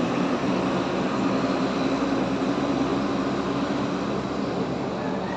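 Large diesel bus engine running close by: a steady low rumble.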